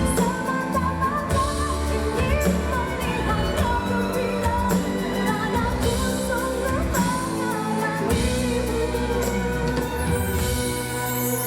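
Pop song: a sung melody over a band with drums.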